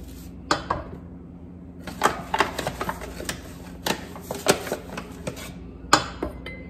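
Measuring cup scooping flour out of a paper flour bag and tipping it into a stainless steel mixing bowl: a string of sharp clicks, knocks and paper rustles over a faint steady low hum.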